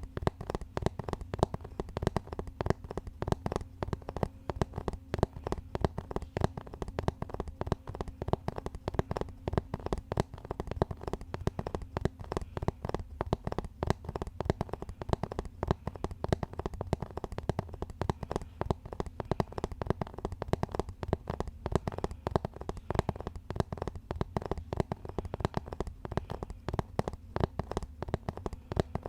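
Rapid, continuous tapping on a surface, many taps a second without pause, over a faint steady hum.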